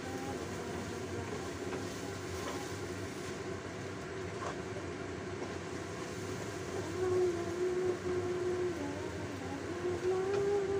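Winter melon sautéing in a stainless steel wok over a gas flame: a steady hiss with a few light scrapes of a wooden spatula. Over it, a few held notes step up and down in pitch, louder near the end.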